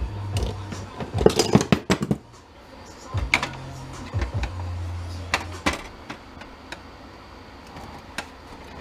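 Clicks, knocks and rattles of the plastic casing and parts of an HP Deskjet inkjet printer being handled and pried at during disassembly, with a low hum that comes and goes.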